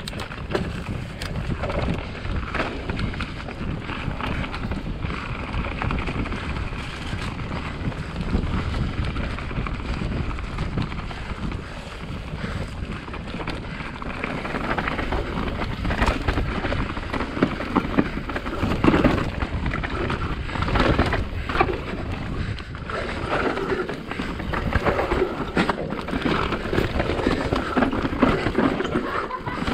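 Specialized Enduro mountain bike riding down a dirt trail: tyres on the dirt, with frequent sharp rattles and knocks from the bike over bumps, and wind noise on the microphone. It gets louder and rougher about halfway through.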